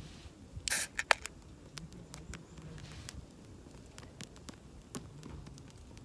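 Wood campfire crackling with scattered sharp pops. A short hiss comes a little under a second in, followed by a loud snap about a second in.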